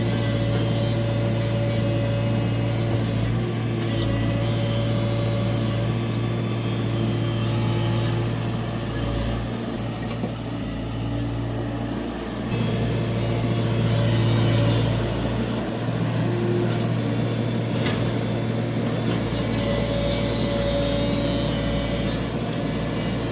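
Diesel engine of a Tata Hitachi EX70 excavator running steadily under working load, with higher tones that come and go. It grows louder for a couple of seconds a little past halfway, then settles.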